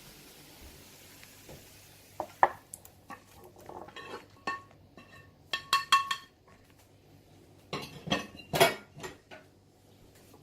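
A metal utensil scraping and clinking against a frying pan and crock pot as the sealed chicken pieces are moved across: a faint hiss at first, then from about two seconds in an irregular run of knocks and clinks with short ringing notes, the loudest about two and a half, six and eight and a half seconds in.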